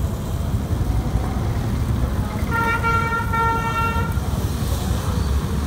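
A vehicle horn sounds one steady, unbroken note for nearly two seconds in the middle, over a steady low rumble of street noise.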